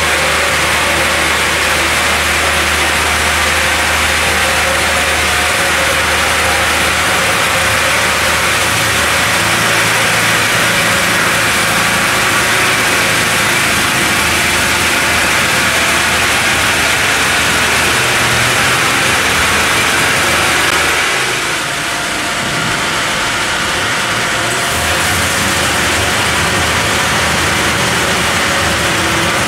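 CD horizontal band sawmill cutting lengthwise through a large log: steady, loud run of the band blade and drive motors with the hiss of sawdust. The sound dips briefly about two-thirds of the way through.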